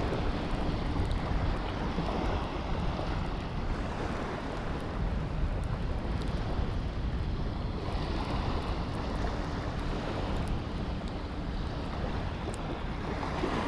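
Steady wind buffeting the microphone, a low, unsteady rumble with a hiss above it and no other distinct event.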